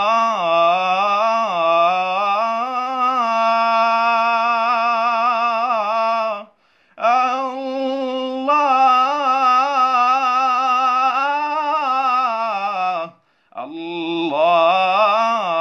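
A solo male voice, unaccompanied, chanting an Islamic ibtihal (devotional supplication) in long, drawn-out melismatic phrases with wavering ornaments on held notes. The voice breaks briefly for breath about 6.5 seconds in and again about 13 seconds in.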